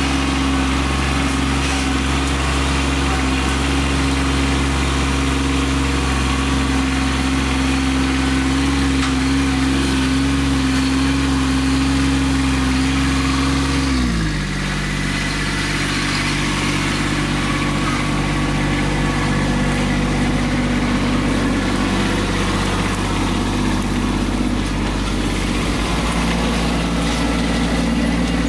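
Kubota B2601 compact tractor's three-cylinder diesel engine running steadily; about halfway through the engine note drops suddenly to a lower speed and holds there.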